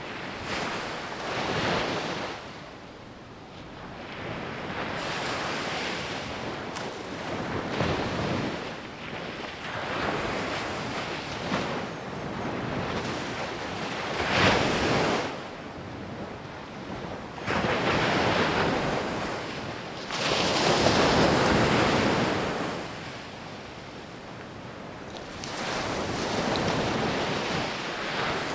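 Sea waves breaking and washing up the beach, the surf swelling and falling away every few seconds, with the biggest surge about two-thirds of the way in.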